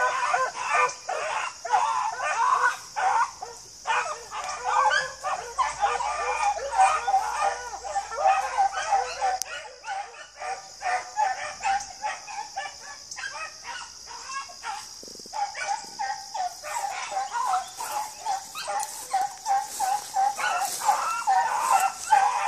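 A pack of beagles baying and yelping, many short overlapping calls following one another without a break.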